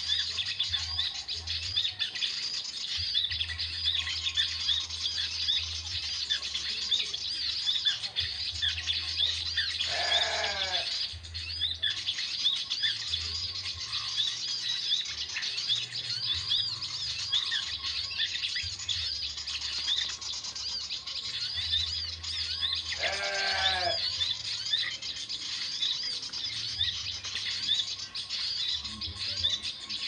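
Small birds chirping continuously in a dense high twitter, the lure calls of a bird-trapping recording. Twice, about ten seconds in and again near 23 seconds, a louder animal call drops in pitch over about a second.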